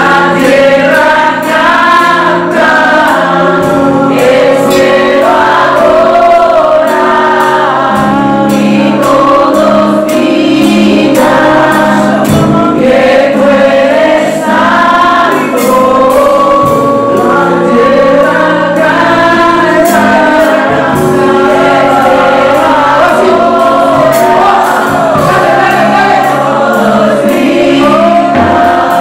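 Live Christian praise music: a male lead singer with other voices, backed by a drum kit keeping a steady beat with cymbal hits and a keyboard holding low chords.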